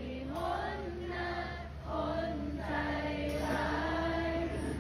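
Live pop ballad singing, sparse and quiet: a melody on long held notes that step up and down, with a choir-like sound of several voices.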